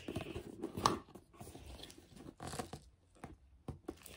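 Cardboard box being handled and its lid lifted: scattered rustles, scrapes and light knocks, the sharpest about a second in.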